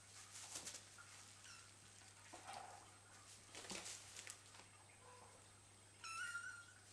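Faint crinkling and scuffling of a thin plastic sheet as two kittens wrestle and roll on it, in several short bursts. A short high call is heard near the end.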